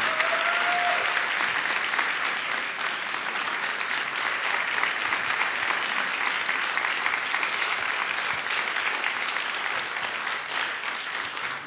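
Audience applauding, easing a little near the end.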